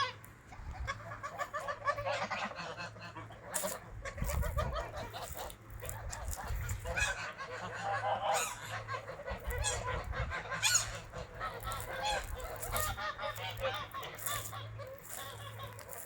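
A flock of domestic geese honking over and over, many calls overlapping.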